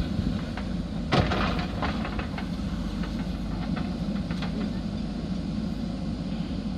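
Diesel engine of a JCB backhoe loader running steadily under work. About a second in there is one loud metallic clank, and lighter knocks and clicks follow.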